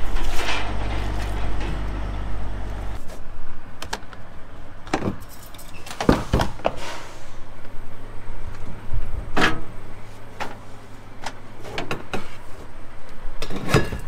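Clanks and knocks of boots on a John Deere combine's perforated metal steps and platform and of hands on its cab door and rail, about ten sharp hits spread out. A low steady rumble underneath cuts off about three seconds in.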